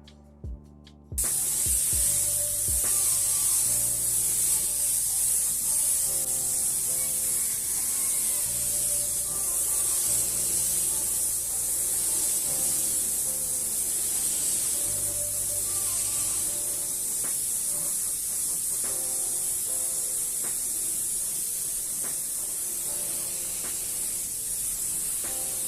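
Steady hiss of paint being sprayed onto bicycle parts, starting abruptly about a second in and running on without a break. Background music with bass notes plays under it.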